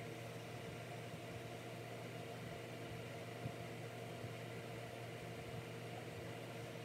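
Room tone: a steady low hum over an even hiss, with one faint tap about three and a half seconds in.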